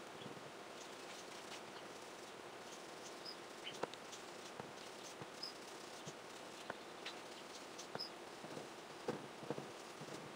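Small foam sponge tool dabbed onto an ink pad and onto paper: soft, irregular taps and pats over a faint steady hiss.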